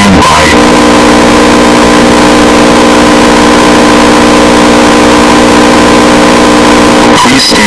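Loud, steady electronic alert tone of a mock Emergency Alert System broadcast: a harsh, buzzy drone of many pitches sounding together. It breaks briefly just before the end and then carries on.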